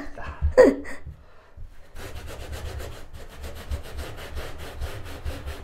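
Hand brush scrubbing a carpet with quick back-and-forth strokes, working a sticky caramel stain out of the pile; the steady scrubbing starts about two seconds in.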